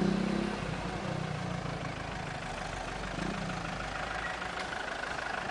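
Engine of a fire-rescue vehicle idling steadily.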